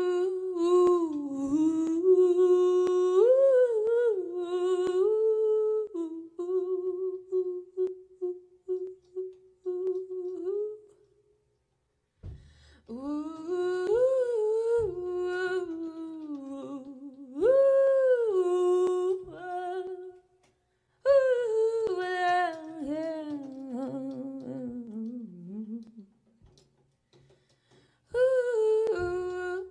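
A single high voice hums a slow, wordless melody. The phrases last several seconds each, with short breaks between them, and the pitch glides up and down within each phrase.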